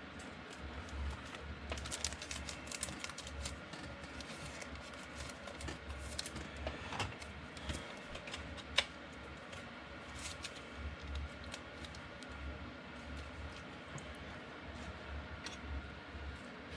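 Trading cards being handled and sorted on a table: a run of light, irregular clicks and taps, with one sharper tap about nine seconds in. A low hum comes and goes underneath.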